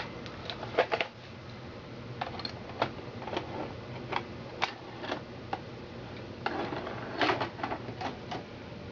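Irregular mechanical clicks and clacks, about fifteen in all and bunched into clusters, from a Betamax VCR being handled and operated, over a faint steady low hum.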